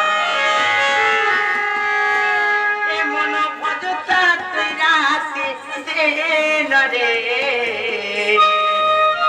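Devotional kirtan music with no words: a long held, wavering melody line over drum strokes.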